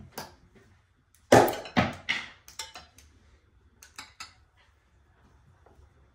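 Glassware and kitchen utensils clinking and knocking on a granite countertop as they are handled: a string of separate sharp knocks, the loudest about a second in, a quick pair about four seconds in.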